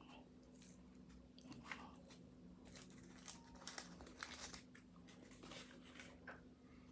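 Faint biting and chewing of pastry, with soft scattered crunches every second or so over a faint steady hum.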